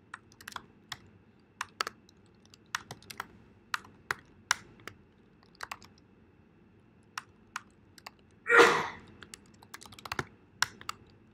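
Typing on a computer keyboard: scattered, irregular key clicks with short pauses between runs. About eight and a half seconds in, a single louder rush of noise lasting about half a second.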